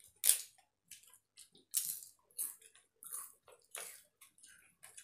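Close eating sounds: crisp papad snapped by hand and chewed, and fingers working water-soaked panta bhat rice on a steel plate, in a run of irregular short crunches and wet squishes. The sharpest crunches come right at the start and again just before two seconds in.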